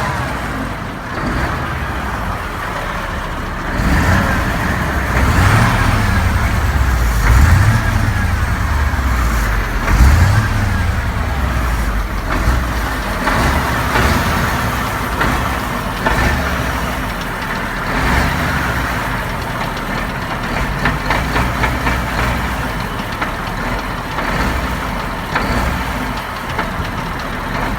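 MAN TGX 18.680's V8 diesel engine running, revved up a few times between about four and eleven seconds in, then settling back to a steadier run.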